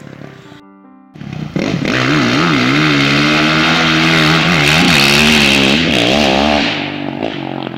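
Small single-cylinder engine, the kind on a pit bike, revving up and down for several seconds, its pitch rising and falling with the throttle. A few held musical notes sound briefly just before it starts.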